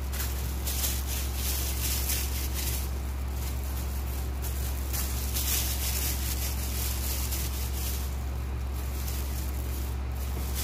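Steady low hum under a constant background noise, with intermittent soft rustling of plastic food-prep gloves as dough balls are rolled by hand and set on a baking tray.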